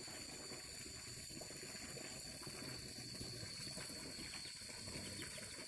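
Muddy water sloshing and trickling in a flooded rice paddy being ploughed with a water buffalo, with a thin steady high-pitched tone over it.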